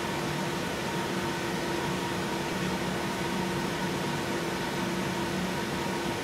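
Ventilation fan running steadily, a constant rush of air with a steady hum and a few faint fixed tones.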